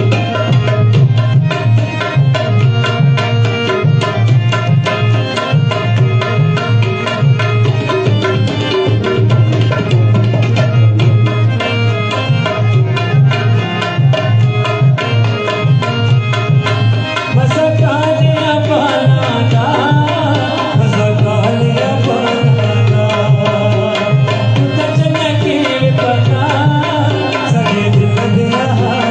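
Tabla playing a fast, steady rhythm under a melody, with a man's singing voice coming in about halfway through.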